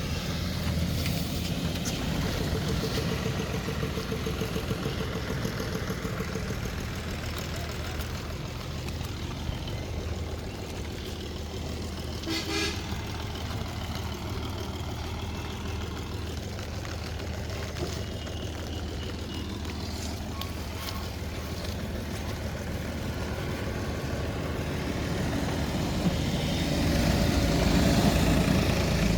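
A motor engine running steadily.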